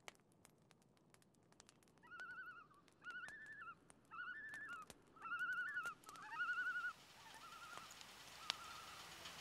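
Common loons giving their tremolo call across the lake: a series of quavering, wavering cries in phrases of about half a second to a second, sometimes two voices overlapping, starting about two seconds in. Faint campfire crackle ticks underneath.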